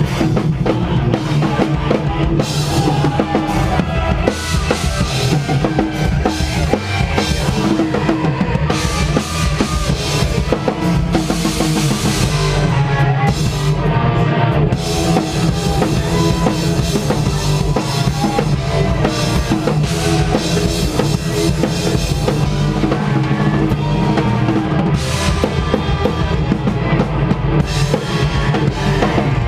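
Live heavy rock band playing loud, with the drum kit to the fore: kick drum and snare hits under a dense wall of bass and distorted guitar.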